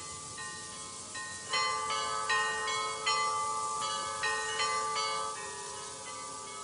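Bells struck in a quick, irregular pattern, each tone ringing on and overlapping the next. Soft chiming at first grows into louder strikes about a second and a half in.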